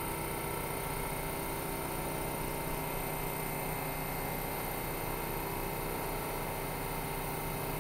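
R68-series subway train standing in the station, giving a steady hum with several steady tones from its idling onboard equipment and ventilation.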